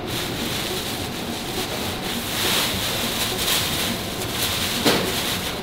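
A large plastic bag rustling as dried stone laver (seaweed flakes) pours out of it into the pan of a roasting machine, a dense crackly hiss, with a single knock near the end.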